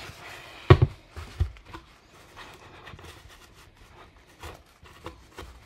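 Large rocket body tube being handled on a workbench: a sharp knock about a second in and a softer one just after, then faint rubbing and scraping as fingers spread wood glue around the inside of its bottom edge, with a few small clicks near the end.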